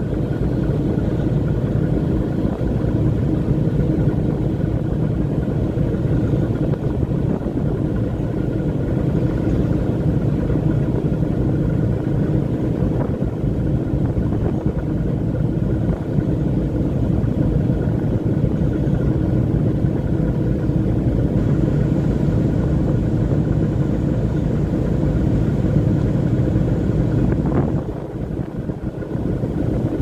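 Boat engine running with a steady drone while the boat moves along the river. The sound dips briefly near the end, then returns.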